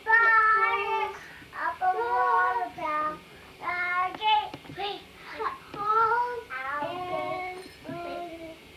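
A young girl singing alone without accompaniment, in a high child's voice, with sustained notes broken by short pauses between phrases.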